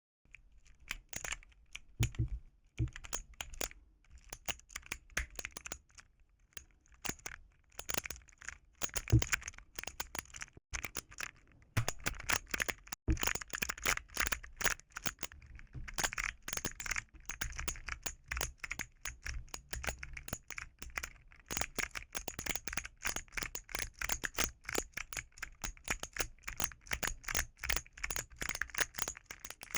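Keys of a keyboard fidget toy being pressed in quick, irregular runs of clacky plastic clicks.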